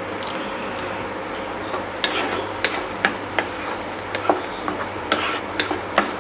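Slotted wooden spatula stirring and scraping thick ground masala paste around a nonstick kadai, with irregular knocks of the spatula against the pan, more of them from about two seconds in, over the steady hiss of the paste frying.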